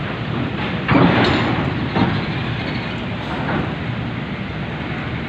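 Heavy box truck rolling off a ferry's steel bow ramp, its diesel engine running under loud metallic clatter: a burst about a second in and a sharp bang at two seconds as the wheels cross the ramp.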